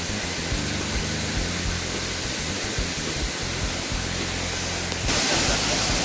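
Steady rush of a waterfall, jumping suddenly louder about five seconds in, where the water is close by.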